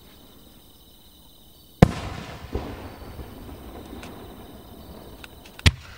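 Aerial firework shells from Nomura Hanabi Kogyo bursting: a loud boom about two seconds in with an echoing tail, a smaller bang soon after, a few faint pops, and another sharp boom near the end.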